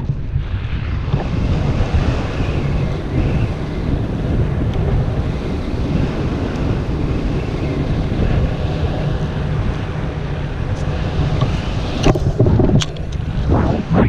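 Wind rushing over the helmet camera's microphone in paraglider flight: a steady, heavy noise of airflow, with a few sharp crackles near the end.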